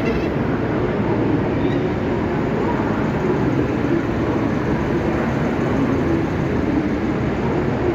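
Steady ambience of a large railway station platform under a big roof: a constant low rumble of trains and machinery with the general hubbub of the station.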